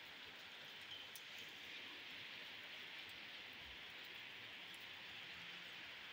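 Heavy rain falling in a steady hiss, with a few faint ticks of drops hitting something close by.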